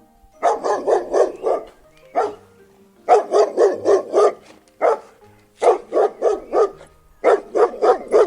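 A dog barking in quick runs of four to six barks, with single barks between the runs.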